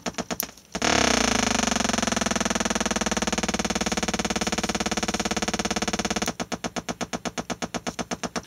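Homemade three-transistor astable multivibrator 'ratata' sound generator heard through an amplifier: rapid machine-gun-like pulses, about ten a second, break off when its switch is flipped. After a short gap a loud steady buzzing tone starts, dropping slightly in pitch as it settles, and about six seconds in it switches back to the rapid ratata pulses.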